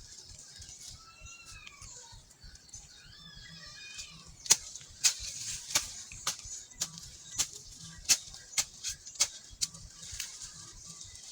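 A hoe striking the soil in repeated digging strokes, about two a second, starting about four seconds in. Before that, birds chirping.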